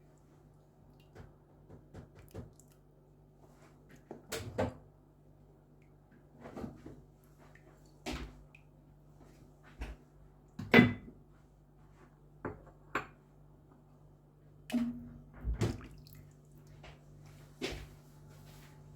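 Kitchen handling sounds: scattered clicks, knocks and light clatters of utensils and dishes, about a dozen, the sharpest about eleven seconds in, over a faint steady hum.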